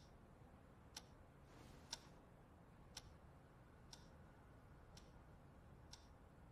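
Faint clock ticking steadily, one tick a second, over a low hiss.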